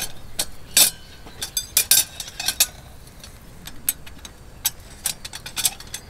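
Stainless-steel fire-pit frame being fitted together by hand: scattered sharp metal clicks and clinks as its rods and crossbars meet, the loudest in the first two seconds.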